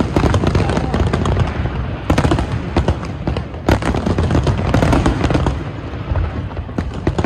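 Large aerial fireworks display: a dense, rapid series of bangs and crackles from shells bursting overhead, over a continuous low rumble.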